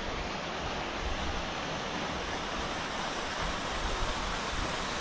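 Steady rushing outdoor noise with uneven low rumbling underneath.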